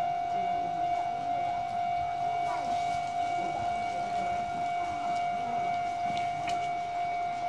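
Japanese level-crossing warning bell ringing as a steady high tone, signalling that a train is approaching.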